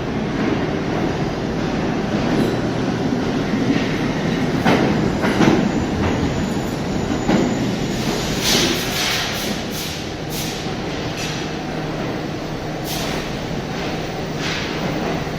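R68A New York City subway train moving through the station with a steady rumble, its wheels giving several short squeals and clanks against the rails over the second half.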